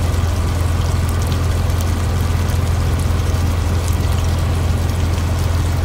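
Steady low hum of an idling truck engine, with a stew simmering and bubbling in an electric skillet.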